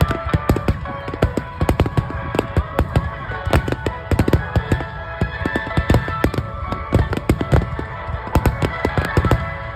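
Fireworks shells bursting in rapid succession at a fireworks display, many sharp overlapping bangs a second, with music playing underneath.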